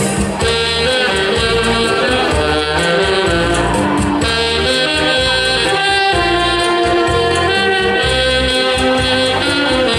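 Saxophone ensemble playing a Hakka folk tune together, the melody in sustained notes over a steady bass line.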